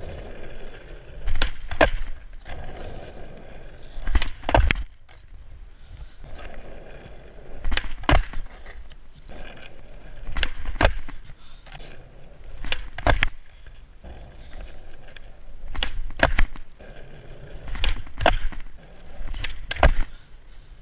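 Skateboard wheels rolling on rough asphalt, broken every two to three seconds by pairs of sharp clacks about a third of a second apart: the tail popping and the board landing on flatground tricks, eight times over.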